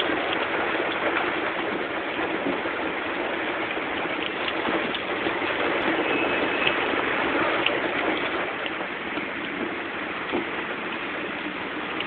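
Heavy rain falling on the car and the wet pavement, heard from inside the car with the side window down: a steady hiss with many small drop ticks.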